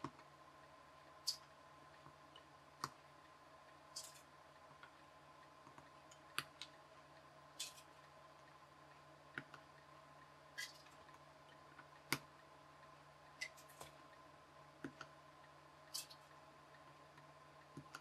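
Small, sharp clicks and snips at irregular intervals, roughly one every second: side cutters trimming resistor leads and components being handled on a small circuit board. A faint steady hum lies underneath.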